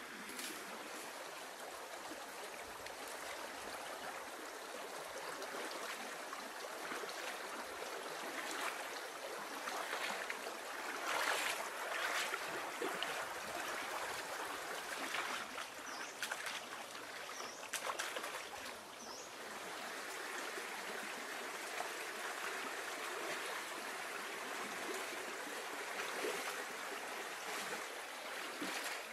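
Steady sound of running water, like a stream, with a few louder moments about 11 and 12 seconds in.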